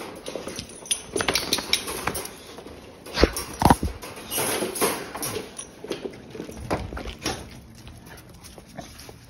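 A Rhodesian Ridgeback and a Boxer scrambling about, their claws clicking and paws pattering on a hard floor amid knocks and rattles. The loudest moment is a pair of heavy knocks a little over three seconds in.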